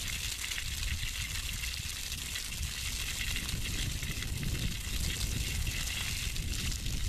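Water running steadily from an open yard hydrant and splashing onto the ground as the system is flushed to draw chlorinated water through after shock-chlorinating the well.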